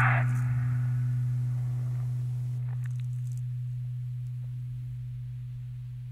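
Low, steady electronic drone: one sustained hum with a single overtone, slowly fading. A short burst of hiss dies away in the first second.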